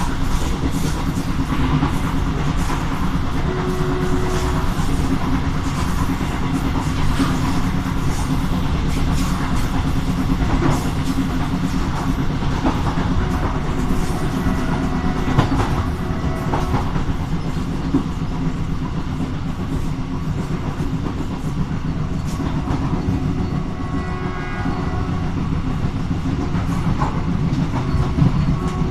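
Passenger train running at speed behind a diesel locomotive: a steady rumble of wheels on rails, with frequent clicks and knocks over the track.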